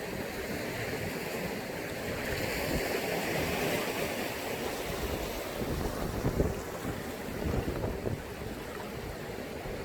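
Sea waves washing in, a steady rush that swells about two to four seconds in, with wind buffeting the microphone in low thumps near the middle.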